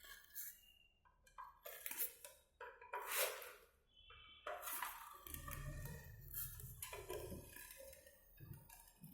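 Faint, scattered clicks and metallic clinks of hand tools and screws on metal ceiling fan parts as the blade screws and bolts are tightened, with some low handling rumble about halfway through.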